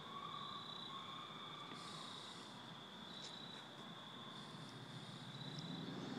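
Insects chirring steadily in the trees: one unbroken high-pitched trill with softer pulsing shrill waves above it, in a quiet lull with no engine close by.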